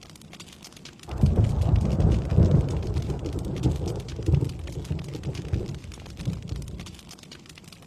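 Steady rain pattering, with a roll of thunder that breaks in about a second in, rumbles loudest for the next couple of seconds and dies away near the end.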